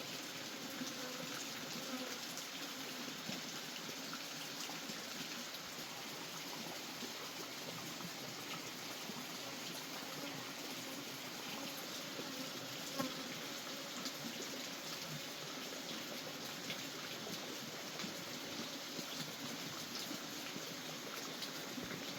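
Steady sound of running water, an even trickling rush with a few small ticks.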